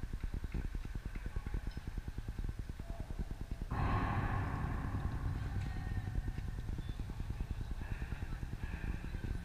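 Wind buffeting the microphone, a constant low rumble, with a sudden burst of broader noise about four seconds in that fades over a second or two.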